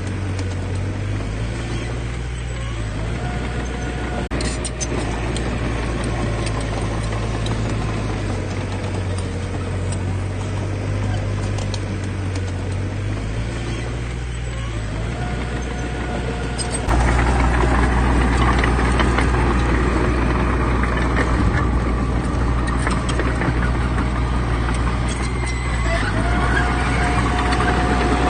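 Diesel engines of heavy earthmoving machines running steadily with a low rumble. The sound jumps suddenly louder about two-thirds of the way through and stays there.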